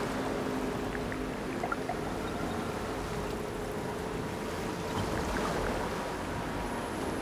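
Ambient electronic soundscape: a steady rushing, water-like noise over a low rumble, with faint held drone tones and a few small scattered clicks.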